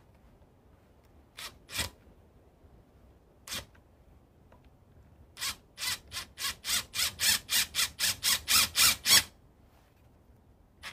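Cordless impact driver triggered in short blips: three single bursts, then a quick run of about fifteen at roughly four a second.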